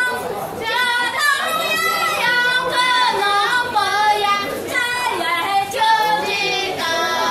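Women singing a high folk-style welcome song to guests in Miao style, with long held notes.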